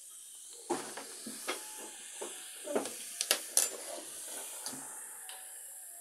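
Baking soda and vinegar foam fizzing steadily as it overflows a plastic bottle, with a run of sharp knocks and clicks over it, the loudest a little past the middle.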